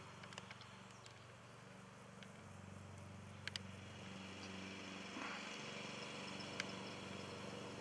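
Faint, steady hum of a distant grass-mowing engine, its pitch shifting slightly now and then, with a couple of faint ticks.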